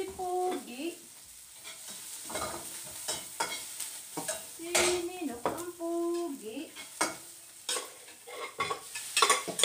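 Food sizzling in a pan while a utensil stirs and scrapes it in short, uneven strokes. A baby's voice makes a few short pitched coos, once near the start and twice in the middle.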